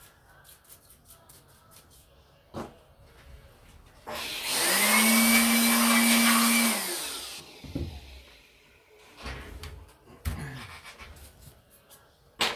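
Handheld electric air blower switched on and run for about three seconds, blowing air over a laptop chassis with a steady motor whine, then winding down. A few short knocks before and after.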